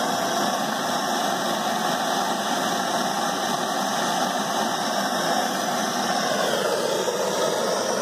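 Handheld gas torch burning with a steady flame noise while heating a copper refrigerant line to solder a pinhole leak. Its tone shifts slightly about six seconds in.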